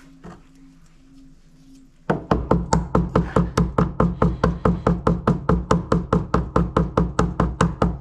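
Small hammer tapping rapidly and evenly, about six light blows a second, on the mounting pin of a washing machine's suspension damper to knock the pin through. The tapping starts about two seconds in, after a quiet stretch.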